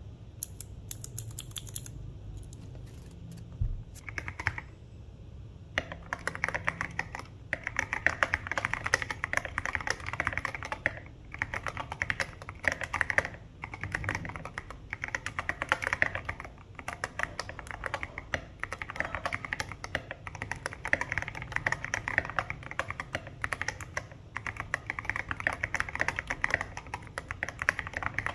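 Typing on a Fanoe mechanical keyboard with Kailh Polia tactile switches: a few scattered keystrokes at first, then steady fast typing from about six seconds in, broken by short pauses.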